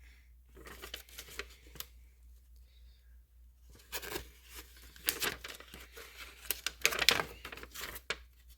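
Paper rustling and crinkling in irregular bursts as a folded paper instruction manual is handled and unfolded, getting louder about halfway through.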